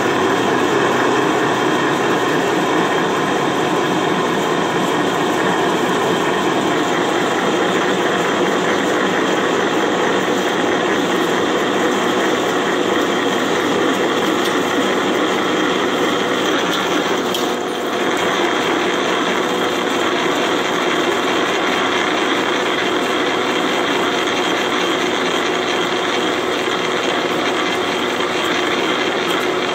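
Milling machine at about 100 RPM driving a 1-inch drill bit through heavy steel plate: a steady, loud cutting and running noise, with a brief dip a little past the middle.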